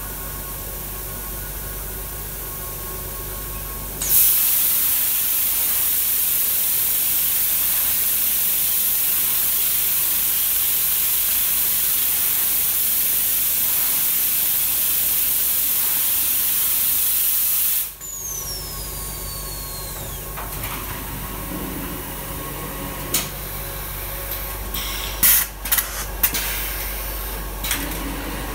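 Automatic anti-static spray nozzles hissing loudly for about fourteen seconds, starting and stopping abruptly, over a steady industrial machine hum. After the spray stops there is a falling whistle and a few sharp clacks.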